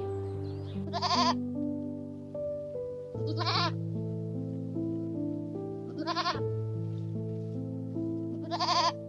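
Goat bleating four times, short wavering calls about two and a half seconds apart, over slow background music of long held notes.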